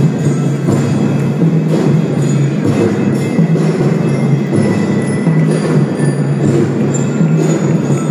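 Kindergarten drum band playing: marching drums and percussion beating steadily under sustained melody notes.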